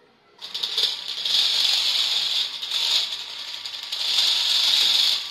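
Makeblock mBot Mega robot's DC gear motors driving its four mecanum wheels in line-following mode, a mechanical whirring and rattling that starts about half a second in and rises and falls in loudness.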